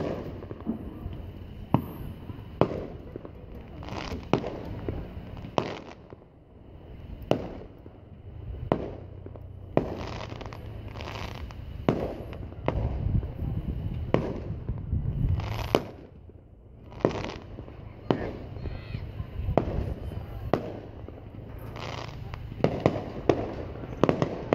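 Fireworks display shells bursting one after another: sharp, echoing bangs every second or two, coming in a faster cluster near the end.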